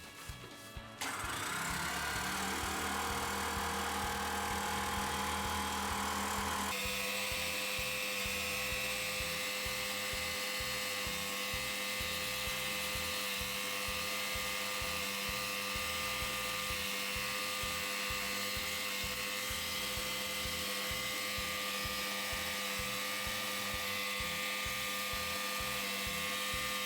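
Electric high-pressure washer switching on about a second in and running steadily, a motor whine over the hiss of its water spray, as it washes an air conditioner. Its tone shifts a little after about six seconds and then holds steady.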